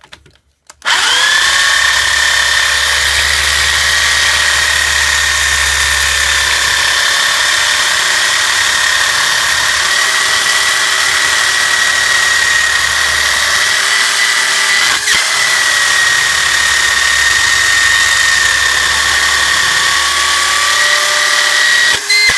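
Electric drill running steadily with a steady whine as it drills out a rivet holding a stroller's plastic folding-handle hinge. It starts about a second in and falters briefly near the end.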